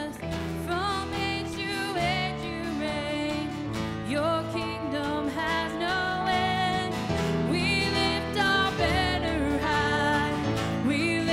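Worship band playing a slow song: a woman sings the melody over electric and acoustic guitar accompaniment.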